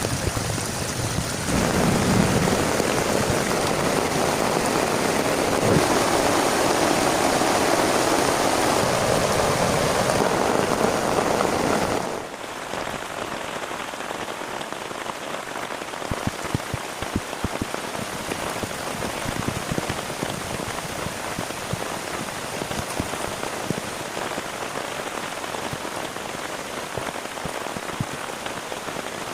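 Heavy rain falling steadily and loudly. About twelve seconds in, it changes abruptly to quieter rain, with many separate drops striking a surface.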